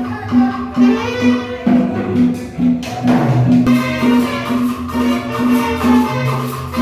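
Latin dance music with a steady percussive beat, about two beats a second.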